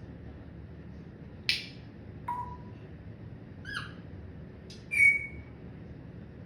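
Pet parrot giving four short calls: a harsh squawk, a brief low whistle, a rougher call with several tones, and a louder short whistle about five seconds in.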